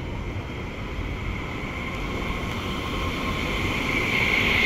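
HTM GTL8 articulated tram pulling in and passing close by, its running noise growing louder, with a steady high whine that strengthens near the end.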